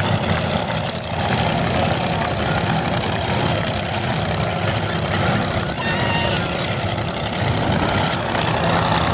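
Racing powerboat engines running hard at speed, a steady loud drone.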